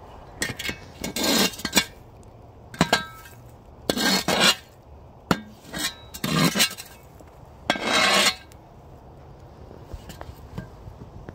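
Steel shovel scraping hot coals off a cast-iron Dutch oven lid, with clinks of metal on iron. About six scrapes in the first eight seconds, then it stops.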